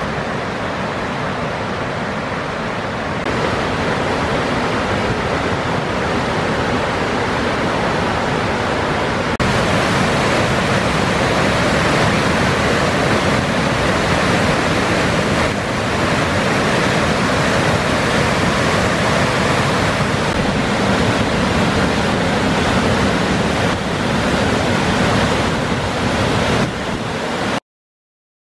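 Rushing water of a fast, swollen river and waterfalls: a steady, dense hiss of water with small jumps in level where the shots change. It cuts off suddenly about a second before the end.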